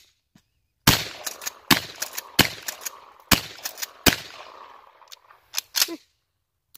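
A 12-gauge shotgun loaded with number 6 birdshot fires four shots in quick succession, starting about a second in, each trailing off into an echo. Sharp metallic clicks from working the action come between the shots and again near the end.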